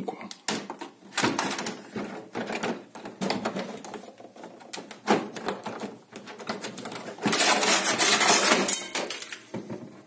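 Plastic drip panel under a refrigerator's freezer compartment being worked loose and pulled out: a run of clicks and knocks of plastic, then a loud scraping slide a little after seven seconds in.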